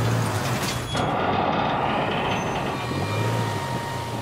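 Land Rover Discovery pulling away under heavy load with a road train in tow: engine running beneath the rumble of the heavy truck and trailer wheels beginning to roll. The sound changes abruptly about a second in to a louder, rougher rolling rumble.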